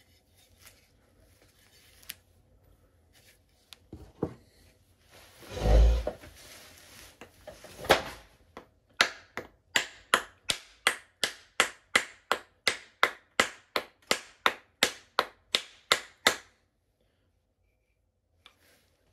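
Hammer head being driven onto a new wooden handle by striking the handle's top end: a steady run of about twenty sharp knocks, roughly three a second, after a heavier thump and a single knock.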